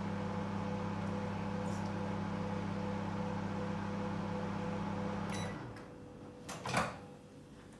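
Microwave oven running with a steady hum while heating a mug cookie for an extra ten seconds. The hum stops about five and a half seconds in, then come a few sharp clicks.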